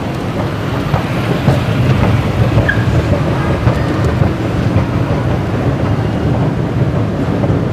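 Long escalator running while carrying a rider down: a steady low mechanical rumble with faint scattered clicks, growing louder about a second in.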